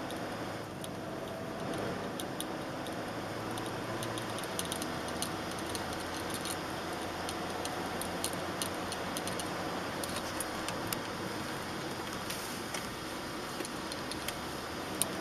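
Inside a Toyota car's cabin while it drives in traffic: steady engine and road noise through the dashcam's microphone, with frequent light ticks and rattles scattered irregularly over it.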